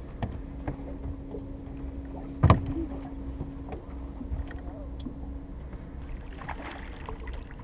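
Footsteps and gear knocking on an aluminium fishing boat's deck and hull, with one loud thump about two and a half seconds in and scattered light clicks, over a steady low hum that stops a little over two-thirds of the way through.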